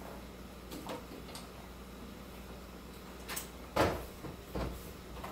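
A wooden cupboard being rummaged: a handful of separate knocks and clunks as its door and the things inside are handled, the loudest a little under four seconds in.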